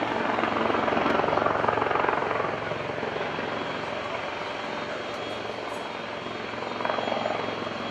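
AgustaWestland AW159 Wildcat, a twin-turboshaft helicopter, flying past in a display: fast rotor chop over turbine noise, loudest in the first couple of seconds, then easing off as it moves away, with a brief swell near the end.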